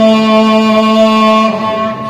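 A man's voice holding one long chanted note at a steady pitch, fading out about one and a half seconds in.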